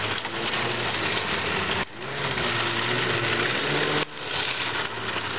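Motor vehicle engines running, a steady mechanical drone with faint low engine tones. It breaks off abruptly twice, about two and four seconds in.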